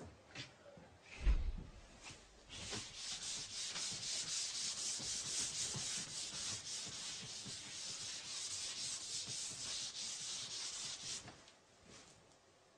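Chalk being wiped off a chalkboard: a steady rubbing hiss lasting about nine seconds that stops abruptly, preceded by a single dull thump about a second in.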